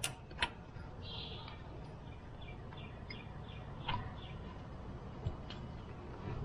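A few light clicks and taps of an Allen wrench working the drain plug on the rear differential, with faint bird chirps in the background.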